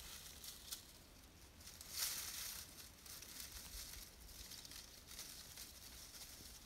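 Faint rustling and crinkling of dry fallen leaves, swelling and fading in soft waves.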